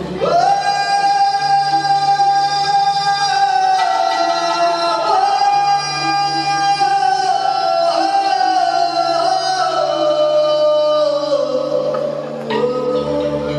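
Live band music: a singer holds one long note that slowly sinks in pitch over a steady bass drone, giving way to new notes near the end.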